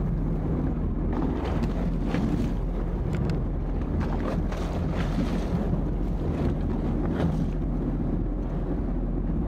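Boat engine running at a steady low hum, with wind blowing on the microphone and the sea washing around the hull.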